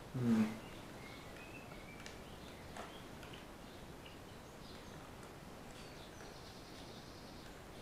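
A brief vocal sound right at the start, then quiet room tone with a few faint, high, short chirps like birds, and a small click about three seconds in.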